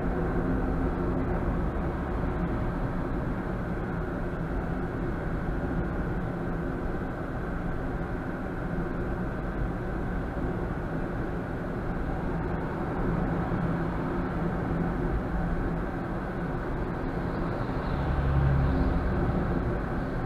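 Steady engine and road noise of a car being driven, heard from inside the cabin, with a low rumble swelling briefly near the end.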